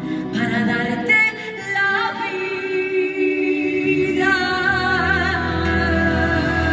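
A woman singing a Spanish evangelical worship song into a microphone through the PA, drawing out long wavering notes, with music backing her that fills out about four seconds in.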